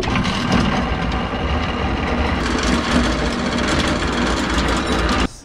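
Boat's outboard motor running steadily, then cutting off suddenly near the end.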